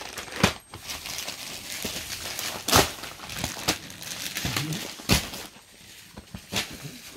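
Cloth and its wrapping rustling and crinkling as a suit piece is handled and spread out, with about five sharp taps or thumps spaced a second or so apart.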